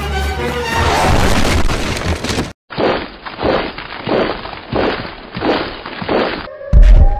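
Cartoon sound effects: a dense crashing, breaking noise that cuts off abruptly about two and a half seconds in, then a muffled run of heavy rhythmic pulses about every two-thirds of a second, ending in a loud low boom.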